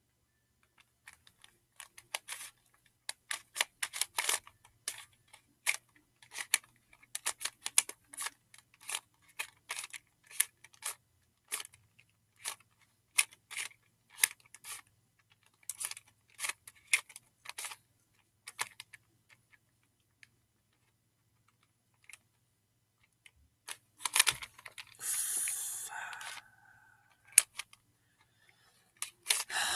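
Plastic barrel cube, a Rubik's-cube-style twisty puzzle, being turned by hand: runs of sharp clicks and clacks as its layers snap round, stiff and clanky because the new cube is not yet broken in. After a few seconds' pause comes a longer rustling hiss near the end.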